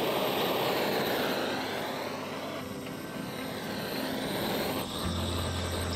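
Handheld gas torch burning with a steady rushing hiss. A low hum joins about five seconds in.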